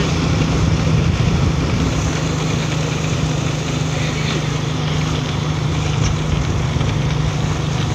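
A small vehicle engine running steadily as it moves along a road, a constant low hum under road and wind noise.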